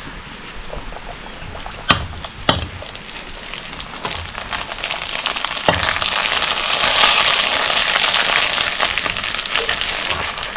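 Pani puri dough discs deep-frying in hot oil in an iron kadhai, the sizzle building up and growing loud from about four seconds in as the puris puff up. Two sharp knocks come about two seconds in.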